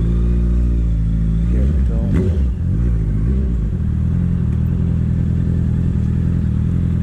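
Honda CB650F inline four-cylinder engine through a full aftermarket sport exhaust, running under way; about two seconds in the revs dip and climb again, as in a gear change, then it runs at steady revs.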